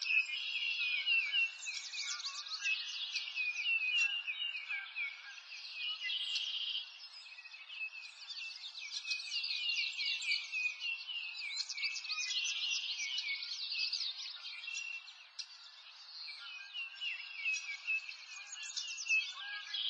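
Dense chorus of small songbirds chirping and twittering, many high-pitched calls overlapping without pause.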